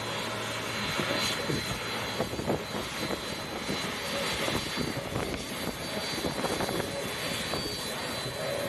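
Jet engines of a Japan Airlines Boeing 767 running at low power as the airliner taxis close by: a steady rushing sound with a constant high whine over it.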